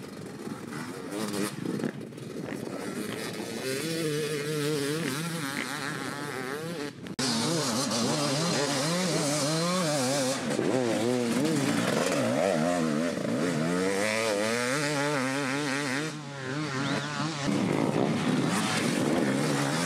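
Enduro motorcycle engines revving, their pitch rising and falling as the bikes ride. The level jumps suddenly about seven seconds in.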